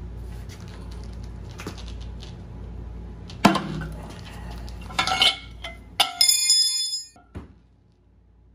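Metal clanks and clinks from a steel pipe and combination wrench working a homemade steel puller as the rusted wet cylinder sleeve of a McCormick-Deering Type M engine breaks loose. A sharp clank comes about a third of the way in, then a cluster of clinks. About 6 s in a clang rings high and metallic for about a second, followed by one last knock.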